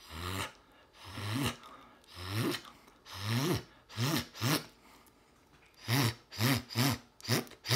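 Beatbox helium tongue-and-lip zipper, an inward sound made by curling the top lip over the teeth on one side, sealing it with the tongue and breathing in. About a dozen short buzzing zips, each sliding up and back down in pitch over a hiss. They come about one a second at first, then in quicker runs near the end.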